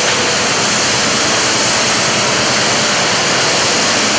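Cotton gin machinery running: a steady, loud rushing hiss of fans, air conveying and lint cleaners, with no changes or knocks.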